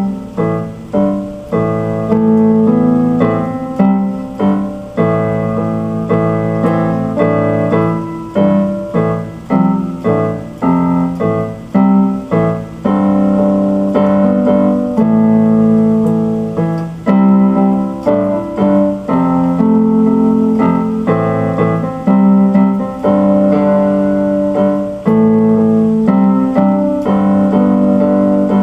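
Instrumental keyboard music: piano notes and chords played one after another, each ringing and dying away.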